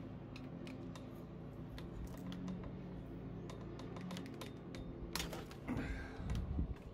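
Socket ratchet wrench working on the crankset's crank bolt, with scattered sharp clicks over a steady low hum. About five seconds in comes a burst of louder clicks, followed near the end by heavier low knocks as the long-seized bolt is forced.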